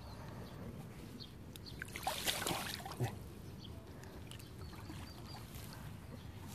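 A short splash at the water's surface about two seconds in, lasting under a second, followed by a sharp knock. Faint repeated bird chirps sound in the background.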